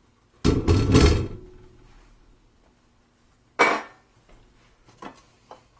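A cast iron skillet and cooking utensil clattering. A burst of heavy clanks and knocks comes about half a second in, then a single sharp clink a few seconds later, and two faint ticks near the end.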